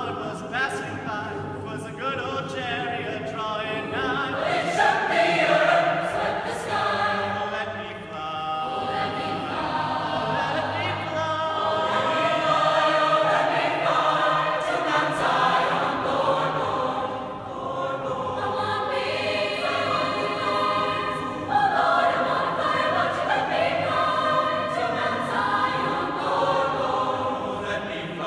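Large mixed choir of male and female voices singing in harmony in a tall stone church, the chords ringing in the reverberant space. The singing swells and eases, with brief dips between phrases.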